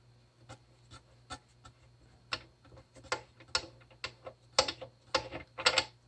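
Irregular sharp clicks and taps of a used VXT boiler water feeder unit being handled, sparse at first and coming closer together near the end.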